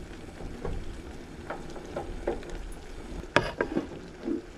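Teriyaki chicken sizzling in a frying pan on a camp stove, with a few light knocks and clatters of cookware and a wooden cutting board. The sharpest knock comes about three and a half seconds in.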